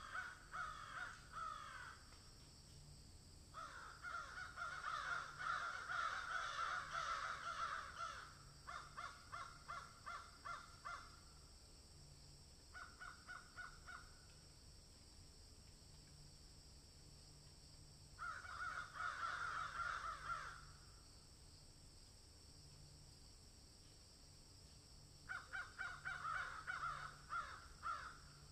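A bird calling in about six bouts of rapid repeated notes, some bouts a couple of seconds long and one about four seconds long, with quiet gaps between them.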